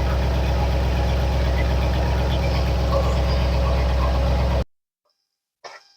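1967 Ford F100 engine on Holley Sniper EFI idling steadily with an even firing beat, warmed up, with the idle settling down. The sound cuts off abruptly about four and a half seconds in, and a dog starts barking near the end.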